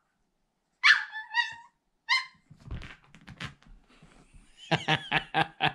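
Yorkshire terrier puppy giving three short, high-pitched yipping barks about a second apart. These are followed by scuffling, scratching noises as she scrambles up onto a fabric recliner.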